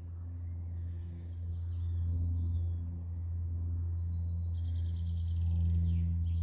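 Low, steady ambient drone music with slow, shifting tones above it. Faint woodland birdsong runs under it: a rapid high trill about four and a half seconds in and a few quick high calls near the end.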